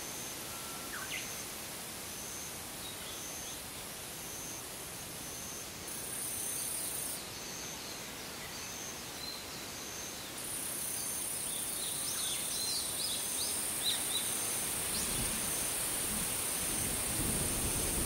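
Evening forest-pond ambience: a steady hiss of insects, with a high pulsing call repeating about every three-quarters of a second. A very high insect buzz switches on briefly about six seconds in and comes back from about ten seconds. A few bird chirps follow, and a low rumble builds near the end.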